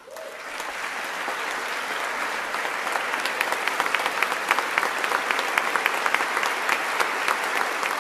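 Audience applauding in a large chamber: the clapping builds up over the first second or two, then holds as steady, sustained applause with many individual claps.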